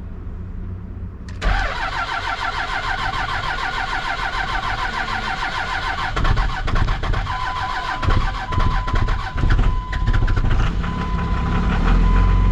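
Second-gen Dodge Ram's 24-valve Cummins turbo-diesel being cranked on the starter in a cold start: a sudden fast rhythmic chatter begins about a second and a half in, turns rougher and uneven as the engine begins to fire, and near the end it catches and settles into a steady idle.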